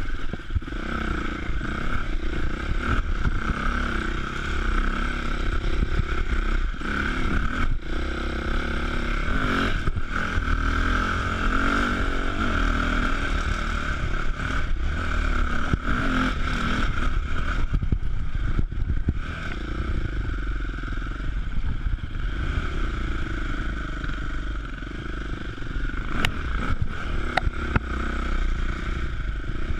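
Enduro dirt bike's engine running under the rider, the revs rising and falling continuously as the throttle is worked over rough trail.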